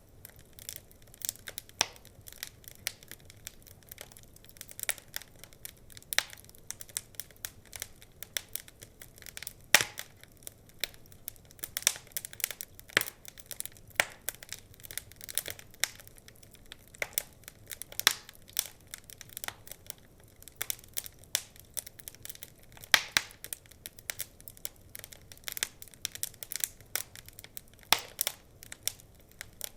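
Wood fire burning in a fireplace, crackling and popping at irregular intervals, with a few louder pops over a soft hiss.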